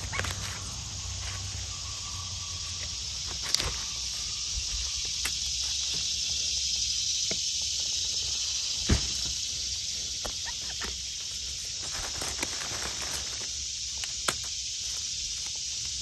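Steady high-pitched drone of an insect chorus in the woods. Over it come a few sharp snaps and rustles, about three and a half, nine and fourteen seconds in, as a golden oyster mushroom cluster is pulled off a dead log.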